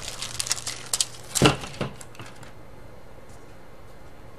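Dashcam parts and cables being picked up and moved on a tabletop: a quick run of light clicks and rustles for about two seconds, with one louder knock about a second and a half in, then only a faint low hum.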